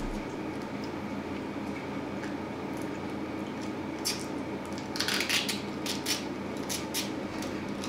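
Eating sounds of fast food being handled and chewed: scattered clicks and crinkles, busiest from about four to seven seconds in, over a steady room hum.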